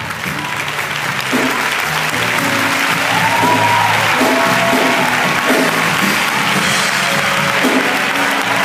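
Audience applauding and cheering over music with a steady low bass line; the applause swells over the first few seconds, with a few shouts rising out of it about three seconds in.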